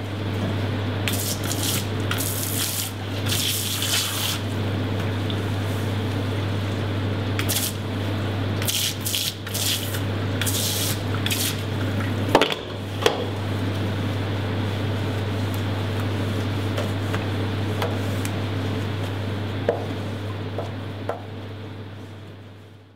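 Water running out through the open drain valve of a FRIMA VarioCookingCenter's metal cooking pan, over a steady low hum. Short bursts of scrubbing and rubbing on the pan's metal bottom come between about one and eleven seconds in, with a few knocks.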